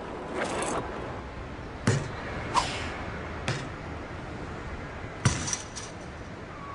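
A basketball thrown on a trick shot, bouncing off hard surfaces: a handful of separate knocks and thuds about a second apart, the loudest about five seconds in, followed by a few quick lighter clinks.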